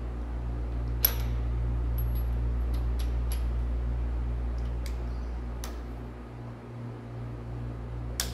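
Scattered sharp metallic clicks and taps of hand tools and parts on a Caterpillar 3406B diesel's cylinder-head valve train as rocker assemblies are fitted, the loudest about a second in and a quick run of clicks near the end, over a steady low background hum.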